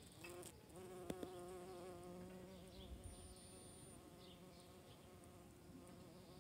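A buff-tailed bumblebee (Bombus terrestris) buzzing in flight, a faint low hum with a stack of overtones, starting just after the beginning and fading a little over the last couple of seconds. A single sharp click about a second in is the loudest sound.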